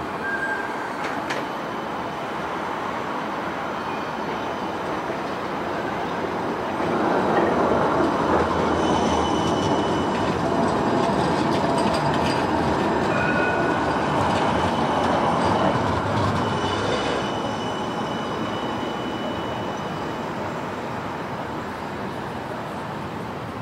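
Siemens Avento tram-train rolling past on curved track, swelling as it passes close and fading as it moves off, with several short high wheel squeals while it is near.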